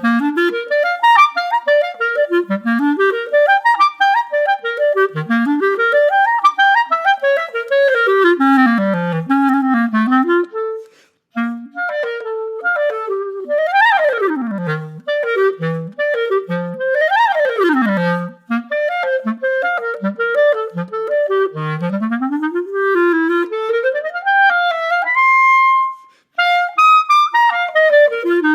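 Solo clarinet, its reed held by a Vientos Vintage ligature, playing fast scales and arpeggios that sweep from the low register up into high notes. It breaks off briefly about 11 seconds in, and again near the end just after a held high note.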